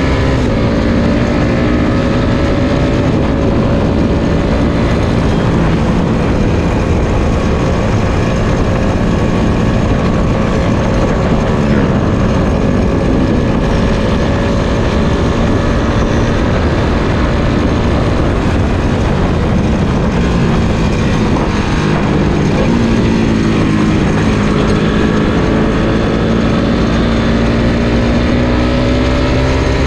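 Suzuki Satria FU 150 fuel-injected single-cylinder engine under way. The engine note holds fairly steady with gentle rises and falls, drops about two-thirds of the way through, then climbs again near the end, over a heavy rumble of wind and road noise.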